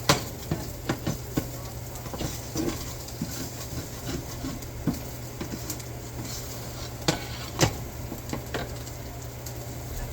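Dishes and utensils knocking and clinking in kitchen cleanup: a quick run of sharp clinks in the first second or so, scattered lighter handling, then two more sharp knocks about seven seconds in, over a steady low hum.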